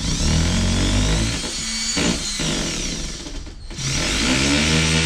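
Hammer drill boring a hole into a concrete wall with a masonry bit. It starts abruptly and its pitch sags under load about two seconds in. It stops briefly about three and a half seconds in, then spins back up and runs steady.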